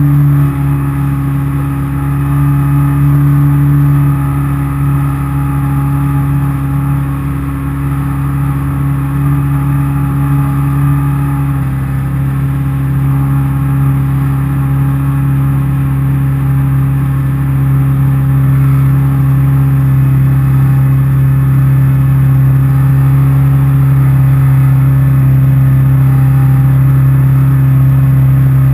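Jet ski engine running steadily, a loud, even engine tone that drops slightly in pitch about twelve seconds in.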